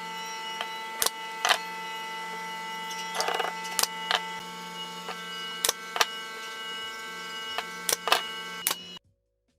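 A machine hums steadily while sharp wooden knocks and clicks fall at uneven intervals. Everything cuts off suddenly near the end.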